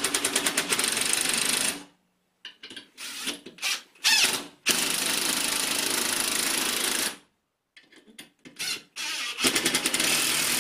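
DeWalt cordless impact driver hammering large hex-head bolts into the wall. There are three long runs of rapid impacts, with short trigger bursts between them.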